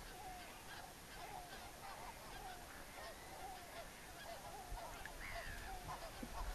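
A flock of geese honking faintly, with many short overlapping calls and a louder, higher call about five seconds in.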